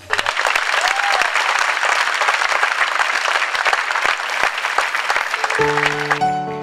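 Theatre audience applauding, a dense clatter of clapping that starts suddenly and stops about six seconds in. Keyboard chords begin just before the applause ends.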